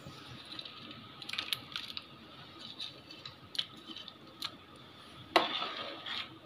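Scattered light clicks and taps as a bowl of ghee-fried cashews and raisins is emptied into a large aluminium pot of thick payasam. Near the end a metal ladle starts stirring and scraping in the pot, the loudest sound here.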